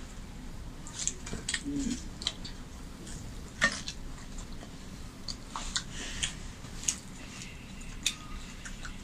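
Scattered clinks and taps of fingers and flatbread against a glass plate and a steel bowl as paratha is torn and picked up by hand, the sharpest about three and a half seconds in.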